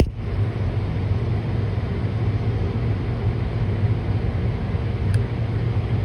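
Hot-staple plastic welding gun buzzing steadily with a low hum while its tip heats a staple to melt it into the plastic bumper.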